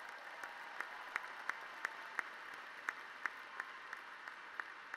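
Large audience applauding steadily, with sharper single claps about three times a second from one person clapping close to the microphone.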